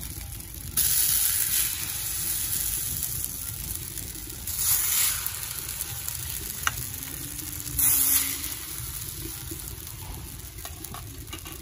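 Rice-flour batter sizzling as it is poured into the hot, mustard-oiled cups of an earthen chitoi pitha mould, three ladlefuls a few seconds apart, each a short loud hiss. A single sharp tap comes between the second and third.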